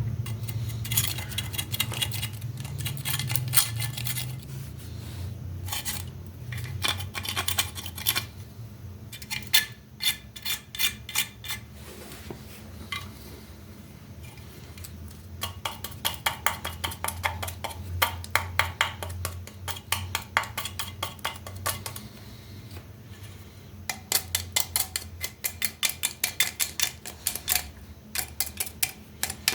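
A hand tool scraping crusted mud and rust off an old metal mug, in quick scraping strokes at about five a second. The strokes come in several bursts separated by short pauses.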